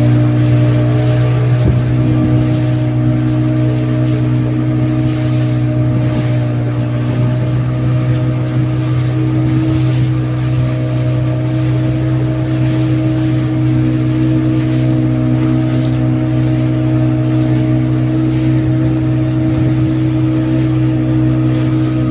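A ship's engine running with a steady, unchanging low drone.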